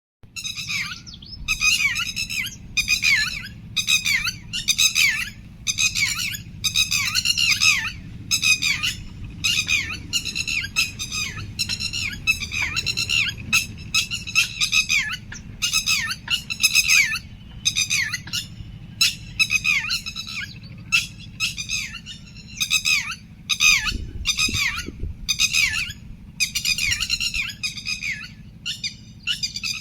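Birds calling in short bursts of rapid chirping notes, about one burst a second, over a low steady rumble.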